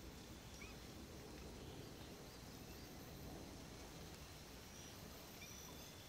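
Faint outdoor ambience: a steady low rumble with a few brief, faint bird chirps.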